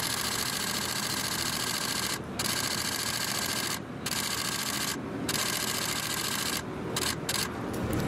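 Steady scratchy rubbing hiss, broken by a few short, sudden gaps.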